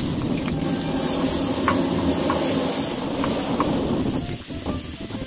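Chopped garlic and oil hitting a hot wood-fired iron griddle and sizzling, starting abruptly as it lands, with a few small crackling pops.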